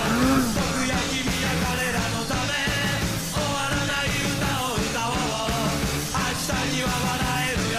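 Punk rock music with a steady beat and shouted singing.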